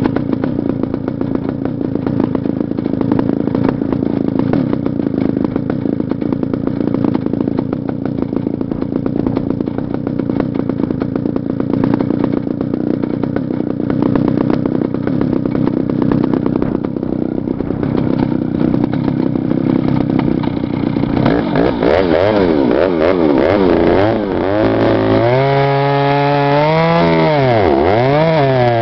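Stihl 076 AVEQ 111 cc two-stroke chainsaw running hard and steady for about twenty seconds, as if held in a cut through wood. Then its engine pitch swings up and down as the throttle is worked, dropping low and climbing back near the end.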